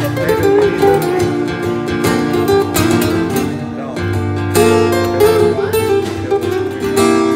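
Two acoustic guitars playing together in an instrumental passage: chords strummed under a picked lead line whose notes bend in pitch.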